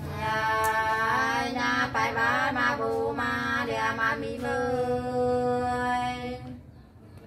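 A woman singing sli, the unaccompanied Nùng folk song of Lạng Sơn, in long held notes with wavering ornaments. The phrase ends about a second before the close.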